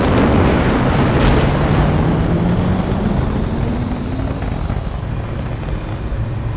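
Fighter jet engines roaring, starting abruptly with a loud rush and a low tone that slowly rises in pitch, easing off slightly before cutting off.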